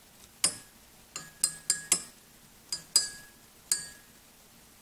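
A stirring rod clinking against the inside of a glass Erlenmeyer flask as a hot suspension is stirred: about eight irregular clinks, each with a brief glassy ring.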